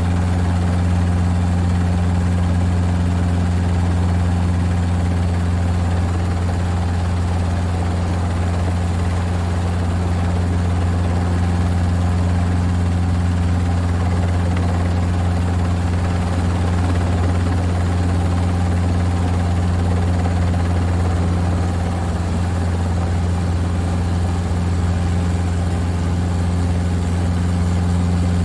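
Helicopter heard from inside the cabin: a steady, unchanging low drone of the engine and rotor.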